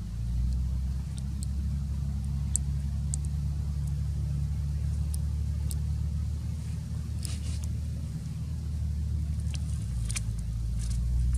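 A low, steady motor hum that shifts slightly near the end, with a few faint high ticks over it.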